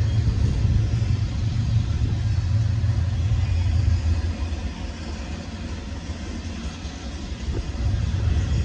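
Norfolk Southern double-stack intermodal freight train rolling past: a steady low rumble of wheels on rail. It eases a little about halfway and swells again near the end.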